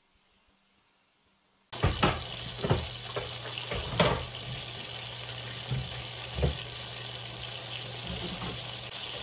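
Pieces of beef frying in hot oil in a skillet, a steady sizzle that cuts in about two seconds in after near silence, with a few sharp knocks soon after it starts and one more past the middle.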